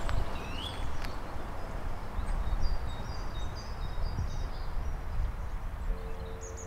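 Outdoor ambience: small birds chirping and twittering over a low rumble. Near the end a steady low tone comes in, the start of music.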